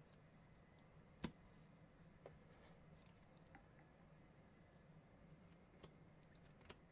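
Near silence over a low steady hum, broken by a few faint clicks and taps as a stack of 2021 Bowman baseball cards is shuffled and flipped by hand; the sharpest click comes about a second in.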